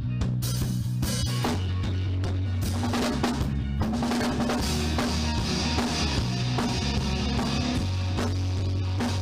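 Rock band playing a song, drum kit up front with regular kick and snare hits over a bass line that shifts note every second or so. It is a rough, low-quality rehearsal recording.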